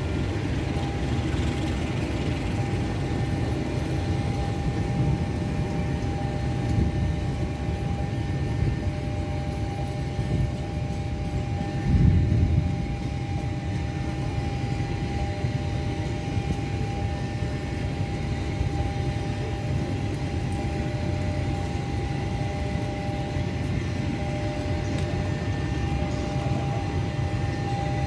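Passenger train coaches rolling past on the track, a steady low rumble of wheels and rails with a steady whine over it and a brief louder swell about twelve seconds in.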